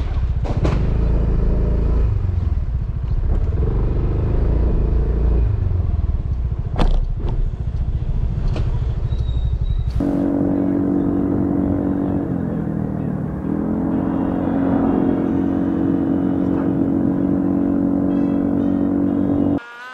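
Motorcycle riding with heavy low wind and engine rumble on the bike's camera and a few sharp knocks. After a sudden cut, a motorcycle engine runs at a steady pitch, dips briefly a few seconds later as the throttle eases, and picks back up.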